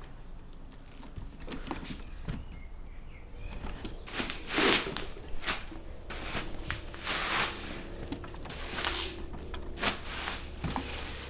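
Packaging being handled: intermittent rustles and scrapes, the loudest about four and a half seconds and seven seconds in, with a few light clicks.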